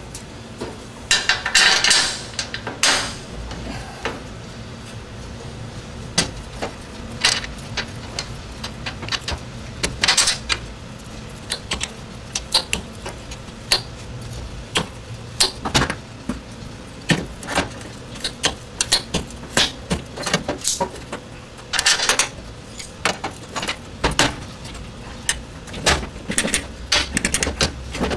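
Irregular metallic clicks, clinks and knocks as a steel fuel-tank strap and bracket are fitted against a truck frame and clamped with locking pliers, with a few longer rattling bursts near the start, midway and about two-thirds through.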